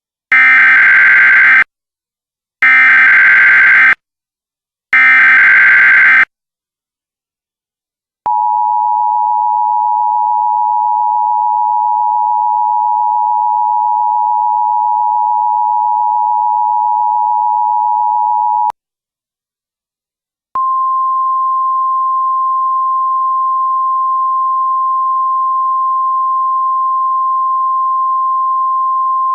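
Emergency Alert System header: three short bursts of shrill digital data, each over a second long, then the EAS two-tone attention signal held for about ten seconds. After a gap of about two seconds comes the single steady 1050 Hz National Weather Service alert tone.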